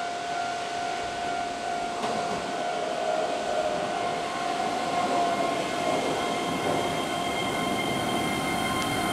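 Keihan 13000-series electric train pulling into a station and slowing, its wheels rumbling under several steady high-pitched whining tones. The sound grows gradually louder as the train comes closer.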